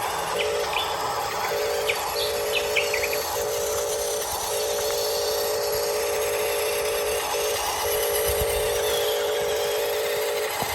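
Small electric motor of a radio-controlled construction model whining steadily, cutting out briefly now and then as the controls are worked.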